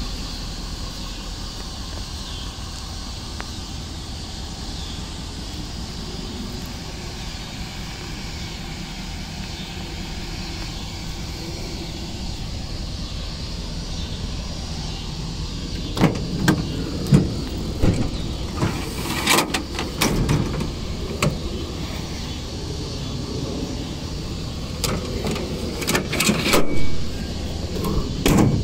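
Ford 6.7 L Power Stroke turbo-diesel V8 idling steadily. From about halfway through, irregular knocks and bumps close to the microphone come over the idle.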